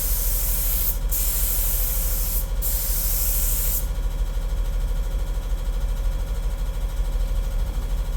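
Primer being sprayed onto wood: a hiss in three spurts with two brief breaks, stopping about four seconds in, over a steady low rumble.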